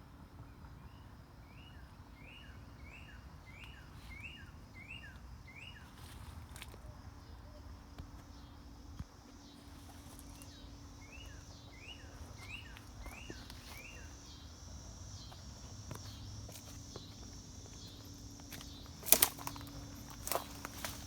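Outdoor ambience: a songbird repeats a short rising whistled note in two runs, over a steady pulsing drone of insects. A few footsteps sound near the end, the first the loudest.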